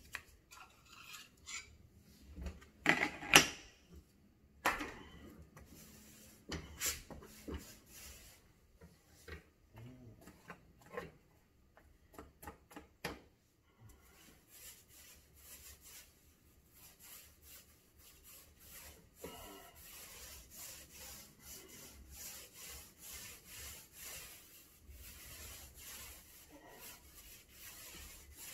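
Mini paint roller being rolled back and forth over a cabinet panel, a soft rhythmic rubbing through the second half. Before that, a few scattered knocks and taps, the loudest a few seconds in.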